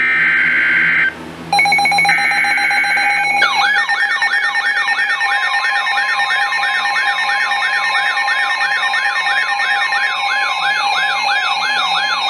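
Emergency Alert System tones: the screeching two-tone data bursts of the SAME digital header, then a steady alert tone. From about three and a half seconds in, a siren-like rising-and-falling sweep joins it, repeating about two and a half times a second.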